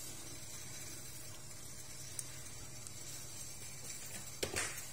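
Quiet kitchen background: a faint, steady low hum, with a small tick about two seconds in and a brief noisy knock near the end.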